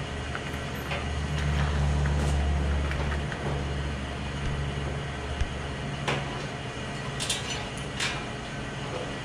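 A low, steady mechanical rumble, loudest in the first few seconds and then easing off, with a few light clicks and knocks of metal hardware and snow blower parts being handled.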